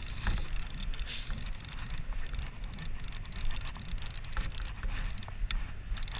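Fishing reel being cranked to bring up a line, with many short, irregular clicks over a steady low rumble.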